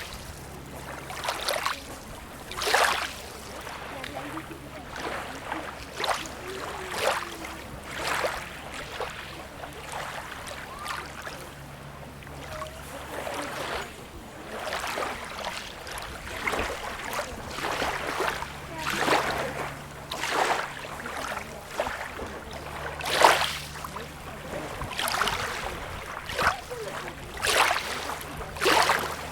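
Small sea waves lapping and splashing at the shore, a splash every second or two, some stronger than others, over a faint steady low hum.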